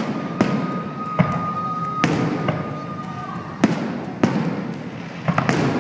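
Fireworks going off in a series of sharp bangs, about eight in under six seconds. A steady high whistle holds through the first half.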